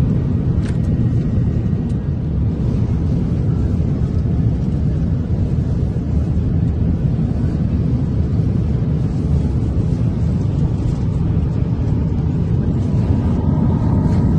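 Steady low rumble inside the cabin of an Airbus A350-900 airliner at cruise: airflow and engine noise.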